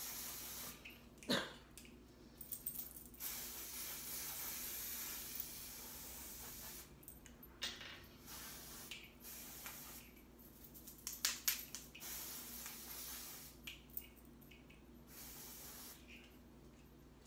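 Aerosol can of pink spray-on hair dye hissing in several bursts of one to three seconds each, with short clicks and taps in the gaps between; the sharpest is a click about a second in.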